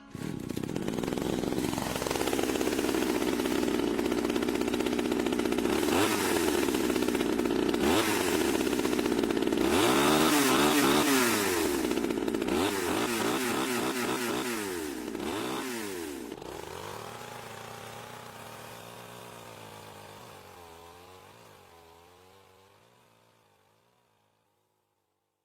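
Chainsaw engine running and revving, its pitch rising and falling several times, then dying away gradually to silence over the last several seconds.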